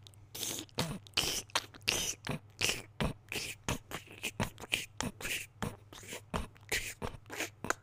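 Rapid scratching of an itch: a run of short, rough scratch strokes, about three or four a second.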